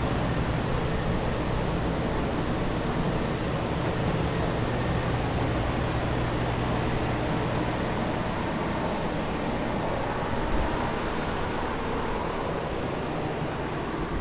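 Steady whooshing rush of water-damage drying equipment, centrifugal air movers and dehumidifiers, running, with a low hum that fades about eight seconds in. A brief low bump sounds about ten and a half seconds in.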